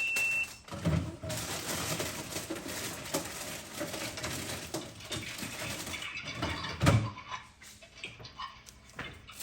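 Groceries being handled and put away: packaging rustling and crinkling, with two heavier thumps as items are set down, about a second in and again near seven seconds in. A short high beep sounds at the very start.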